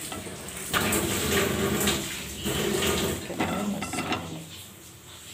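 A spatula scraping and stirring a frying tomato masala in a pan in three noisy stretches, then cut button mushrooms tipped into the pan about four seconds in.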